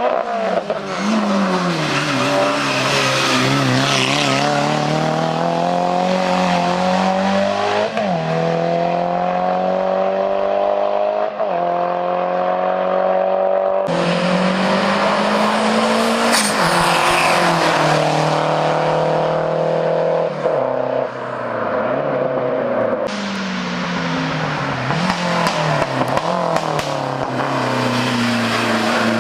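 Hillclimb race car engines accelerating hard through the gears, the pitch climbing and dropping sharply at each upshift. The sound changes abruptly twice as one car's run gives way to another's.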